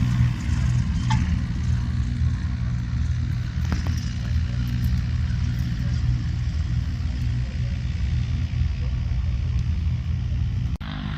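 Light aircraft's piston engine running with a steady low drone that cuts off abruptly near the end.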